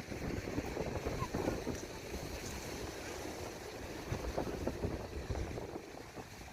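Strong wind buffeting the microphone in uneven low rumbling gusts, over the wash of wind-driven sea waves on the shore.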